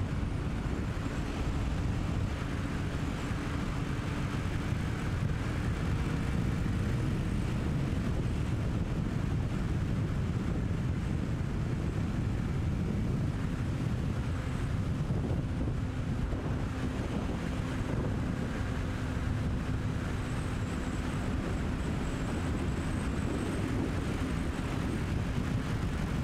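Steady rush of wind buffeting a motorcycle-mounted camera's microphone at road speed, with the Triumph Sprint ST1050's three-cylinder engine running evenly underneath.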